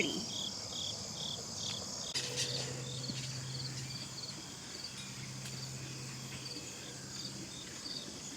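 Insects chirping outdoors in regular, high-pitched pulses. A steady low hum runs under them for a few seconds in the middle.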